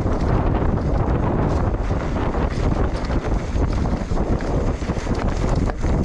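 Wind buffeting the camera microphone while riding a mountain bike at speed, with many short knocks and rattles from the bike running over rough trail.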